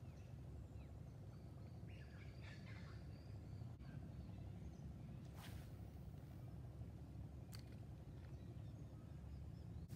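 Faint outdoor ambience: a steady low rumble of wind, with a few faint bird chirps a couple of seconds in and a couple of soft clicks.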